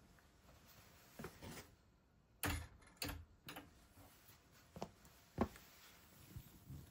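Faint scattered clicks and knocks, about seven over several seconds, the loudest about two and a half seconds in.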